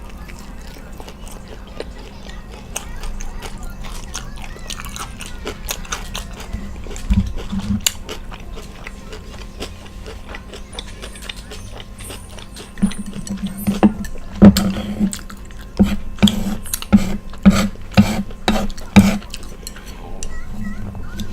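Close-miked chewing of food, with small wet mouth clicks at first. About two-thirds of the way in it turns into a run of loud crunchy chews, roughly one to two a second.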